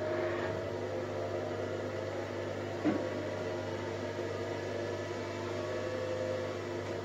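Zoppas PMV1208B front-loading washing machine running with its drum turning: a steady motor hum with a few steady higher tones over it. A single brief thump sounds about three seconds in.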